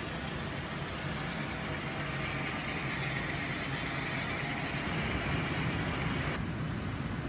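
Steady rushing outdoor noise with a low rumble underneath. Its tone changes abruptly near the end, where the scene cuts.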